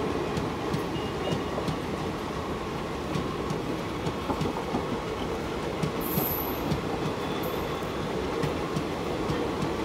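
Indian Railways passenger train's sleeper coaches rolling past, a steady rumble of wheels on rails with frequent clicks over the rail joints. Two brief high squeaks come about six and seven and a half seconds in.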